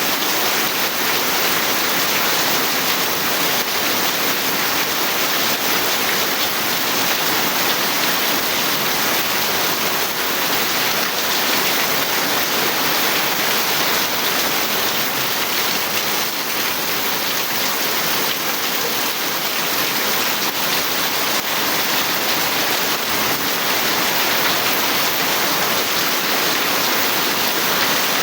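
Steady rain falling, an even dense hiss that keeps up without a break.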